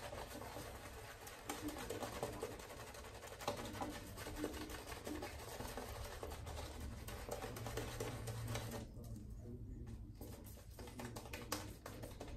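Shaving brush face-lathering: wet bristles swirled over a soaped cheek and chin, a continuous squishy, crackling scrub that thins out and grows quieter after about nine seconds.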